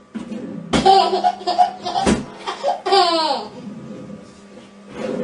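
A person laughing heartily in quick repeated bursts, with a sharp knock about two seconds in.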